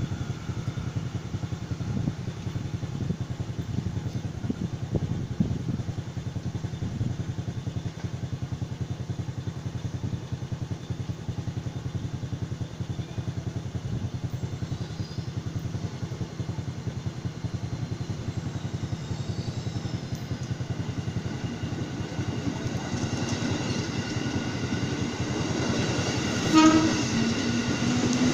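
A steady low rumble for most of the time, then an ex-JR Saikyo Line 205 series electric commuter train approaching on the rails, its running noise growing over the last few seconds. A short horn blast sounds just before it draws level.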